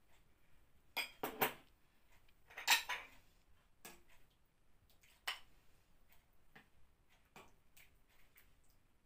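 Metal ladle clinking and knocking against a stainless steel cooking pot and ceramic soup bowls as soup is ladled out. A series of irregular short clinks, the loudest about three seconds in.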